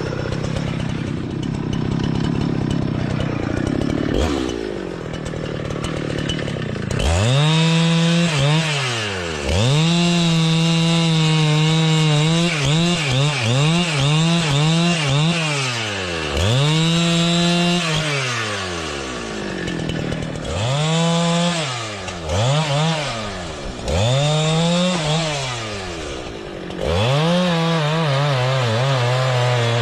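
Gasoline chainsaw running at a low, steady speed, then from about seven seconds in revved to full throttle again and again. Each run lasts one to three seconds before the engine drops back toward idle.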